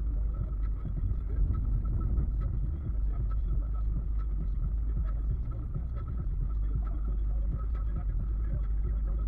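Steady low rumble of a car driving at highway speed: tyre, road and engine noise holding an even level, with a faint steady whine above it.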